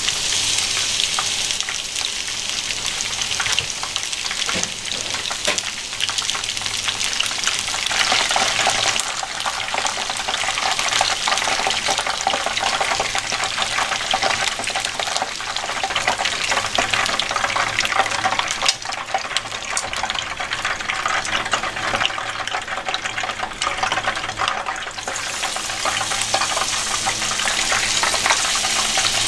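Battered chicken pieces (tori-ten) deep-frying in a pan of hot oil: a steady sizzle full of small crackles, growing louder about eight seconds in.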